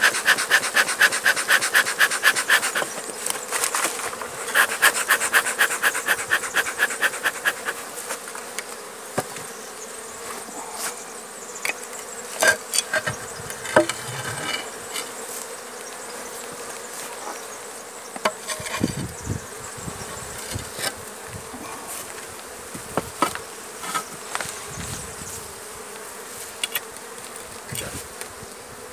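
Honeybees buzzing around an opened hive, a steady hum throughout. Twice in the first eight seconds comes a fast, even rasping scrape as the hive's concrete lid is worked open, and scattered short knocks follow.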